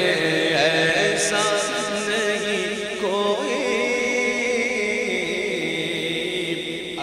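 A male naat reciter singing a long, drawn-out melodic line in a wavering, ornamented voice, with no instruments.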